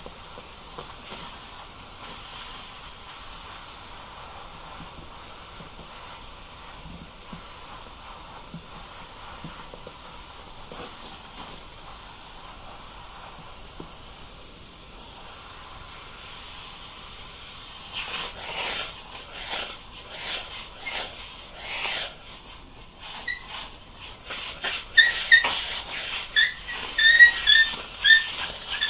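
Handheld upholstery steamer hissing steadily as its wand heats a wrinkle in the vinyl cover to soften it. In the last ten seconds it turns irregular and louder, with spurts and short high squeaks.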